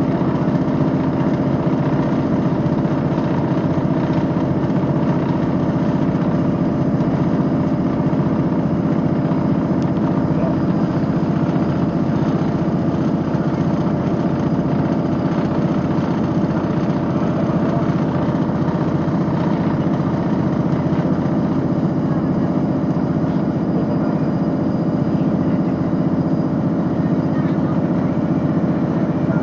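Steady drone of a diesel train's engine, heard from inside the passenger carriage, holding one even pitch throughout.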